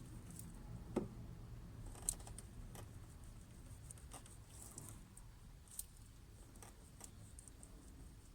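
Scattered small clicks and handling noises from hands working a car's fuel pump pipe connectors loose, with the sharpest clicks about a second in and just after two seconds.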